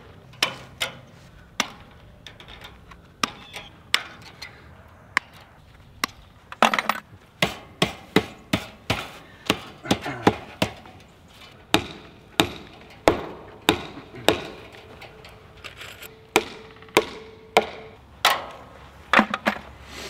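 Sharp hammer strikes on a wooden fence post, irregular, about one or two a second: staples being driven to fasten woven-wire fencing to the post.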